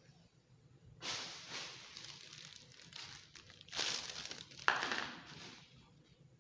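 Crinkling and rustling as latex balloons are handled and rubbed against a foil balloon and the backdrop, in two spells, with a sharper, louder rub about four and a half seconds in.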